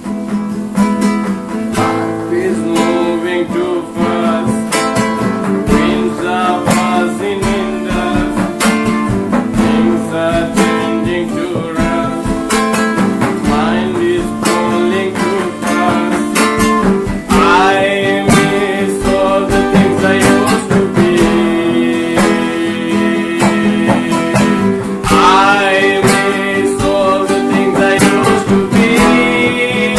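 Rock song instrumental section: lead guitar playing bending, vibrato-laden melody lines over strummed guitar and a drum beat.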